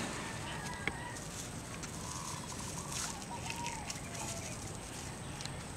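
Faint crackling of a plastic tie and tomato leaves as hands knot the stem to a bamboo stake, over a steady low background rumble. A few short birdcalls come in the distance around the middle.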